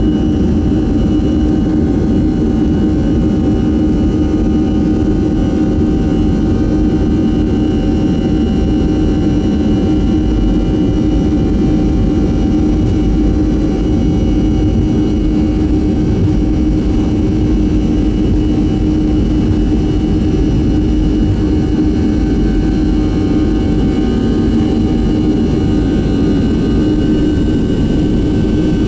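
Boeing 737-400's CFM56-3 turbofan engines running steadily: a loud, even low rumble with a steady whine above it, at a constant engine setting.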